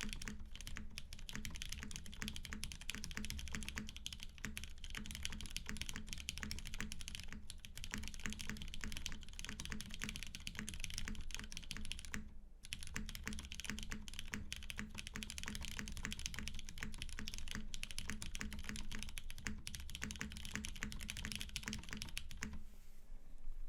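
Continuous fast typing on a TGR 910 RE custom mechanical keyboard with lightly Krytox-lubed Hyperglide brown tactile switches in a polycarbonate plate, GMK ABS keycaps and TX stabilizers. There is a brief pause about halfway, and the typing stops near the end.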